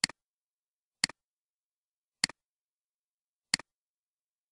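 Computer mouse clicks, four of them about a second apart, each a sharp click followed at once by a softer one.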